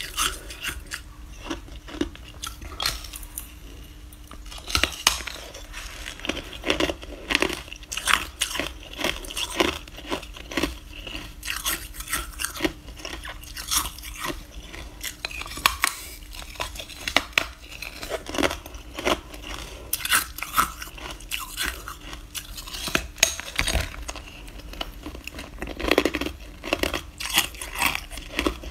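A person biting into and chewing packed crushed ice, with crisp, irregular crunches. They are sparse and quieter for the first few seconds, then come thick and fast.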